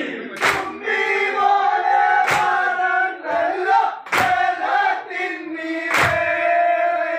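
Snake boat crew of many men chanting together, with a sharp beat landing about every two seconds, four times.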